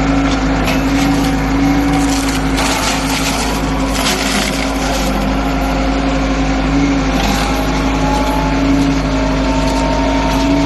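Excavator's diesel engine running steadily under load while a shrub crusher attachment shreds brush, with crackling and splintering of wood that grows louder for a couple of seconds a few seconds in and again briefly later.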